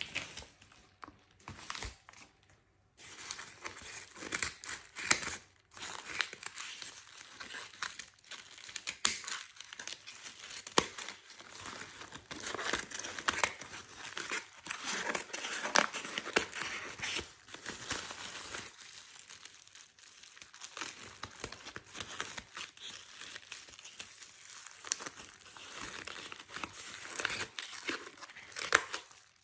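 Plastic courier mailer bag crinkling and rustling as it is handled and cut open with scissors. It starts about three seconds in and runs on in irregular crackles and sharp clicks.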